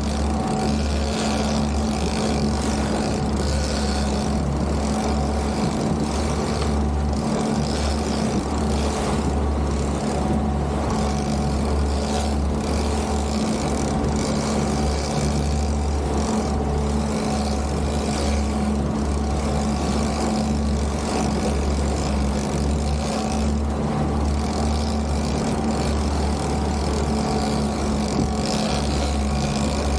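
Boat engine running steadily at constant speed, a low even hum with hiss of water and wind over it.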